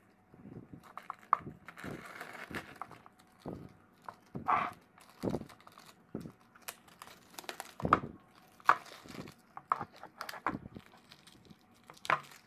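Tape being peeled off a painted canvas: irregular crackling rips and crinkles from the bunched-up strips, with a few sharper snaps.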